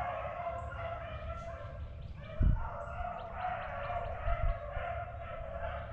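A pack of beagles baying together on a swamp rabbit's trail, many overlapping voices going without a break. A low thump about halfway through is the loudest moment.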